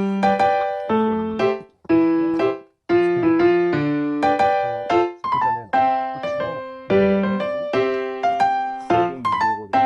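Background music: a bright electric piano playing a bouncy melody of short plucked notes, pausing briefly about three seconds in.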